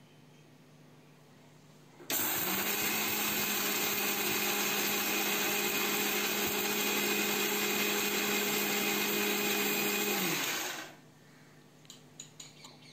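Prestige mixer grinder motor running at a steady pitch as it dry-grinds roasted peppercorns, cumin, coriander seeds, toor dal and dried red chillies into powder in its steel jar. It switches on about two seconds in, runs for about eight seconds, then winds down, followed by a few faint clicks.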